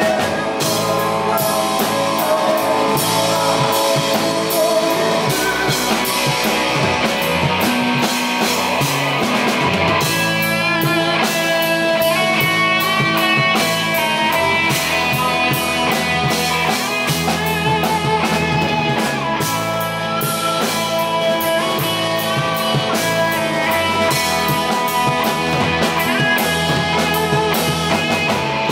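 Live rock band playing: two electric guitars over electric bass and a drum kit, with steady drumming throughout. About ten seconds in, the guitar parts shift to more distinct picked notes.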